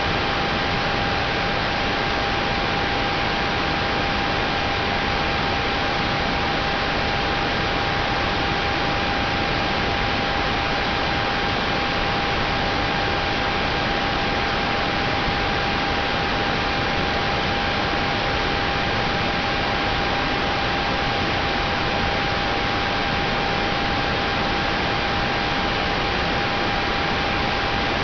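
Steady, unchanging static hiss with a steady mid-pitched tone and fainter higher overtones running through it.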